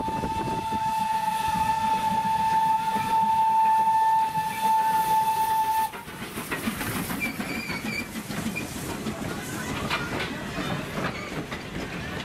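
Steam locomotive whistle held in one long steady blast that cuts off suddenly about six seconds in. Then the rumble and clatter of passenger coaches rolling past on the rails.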